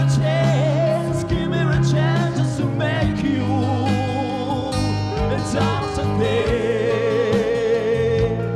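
Music: a song with a singing voice over guitar accompaniment.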